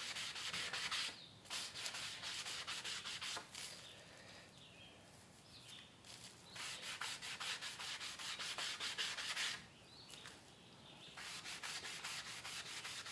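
220-grit sandpaper rubbed back and forth over cured epoxy on a wooden paddle tip, in quick, rapid strokes. The sanding comes in spells of a few seconds with short pauses between.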